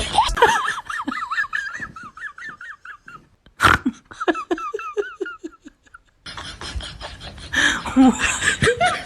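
High-pitched laughter in quick repeated bursts, broken by one sharp, sudden sound about three and a half seconds in. After a brief gap near six seconds, a noisier stretch with more laughter follows.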